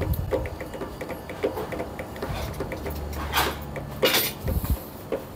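Transfer paper and polyester fabric rustling as they are handled and fed at a heat-transfer roll press, with two louder rustles about three and a half and four seconds in. Light repeated mechanical clicking runs underneath.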